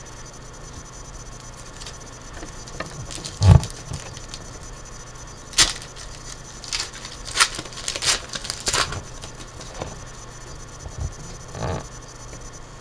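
Foil wrapper of a trading-card pack being torn open and crinkled by hand, a string of short crackles and rips, with one low thump about three and a half seconds in.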